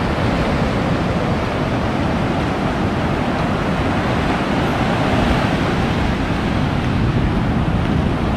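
Ocean surf breaking and washing up a beach, a steady rush of waves and foam, with wind rumbling on the microphone.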